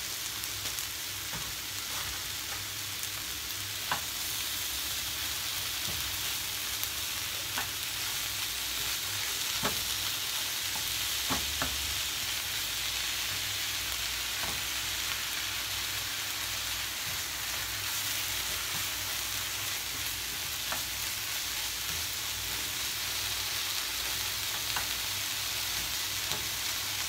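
Ground turkey and diced onion sizzling steadily in a nonstick frying pan as a silicone spatula stirs and breaks up the meat, with a few light knocks of the spatula against the pan.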